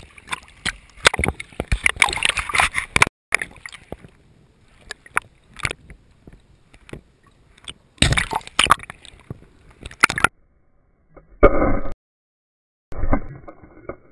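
Water sloshing and gurgling around a camera at and just below the sea surface, with scattered clicks and a strong rush of water about eight seconds in. Near the end the sound cuts out twice, with short muffled bursts between.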